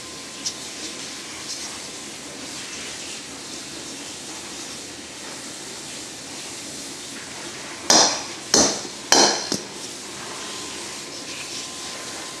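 Three loud, clattering knocks of hard objects striking, in quick succession a little past the middle, over steady background noise.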